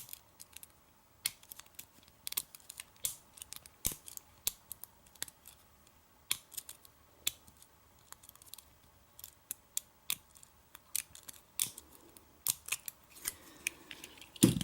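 Metal lock-picking tools working in a KW1-keyway pin-tumbler lock: a stream of irregular small clicks and scrapes as the pins are raked and set, with a louder click near the end.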